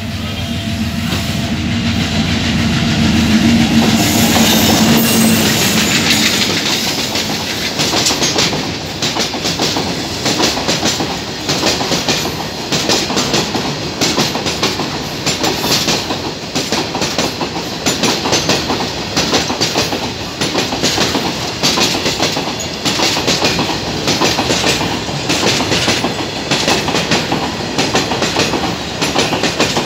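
Freight train passing close by: a diesel locomotive's engine running loudly for the first few seconds, then a long line of box wagons rolling past with a regular clickety-clack of wheels over the rail joints, about once a second.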